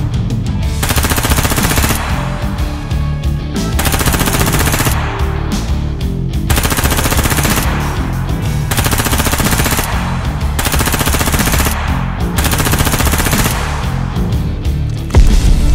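Repeated bursts of rapid machine-gun fire, each about a second long with short gaps between, over background music with a pulsing bass line. Near the end the sound turns louder and deeper.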